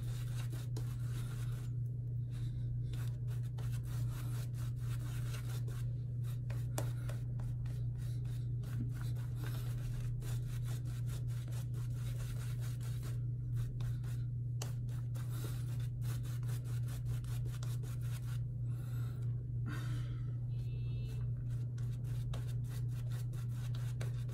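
Semogue 2000 boar-bristle shaving brush scrubbing lather into a few days' stubble in quick back-and-forth strokes, a dense rapid rubbing, over a steady low hum.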